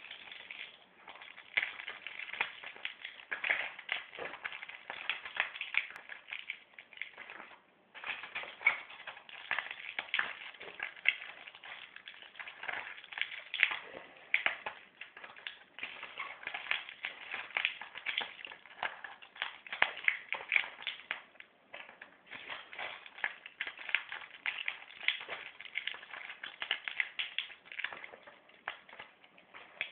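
Tablets being pushed one after another through the foil of Antidol 15 blister packs: a fast, dense run of crackling clicks and pops. There is a brief pause a little before eight seconds in and another shorter lull about two-thirds of the way through.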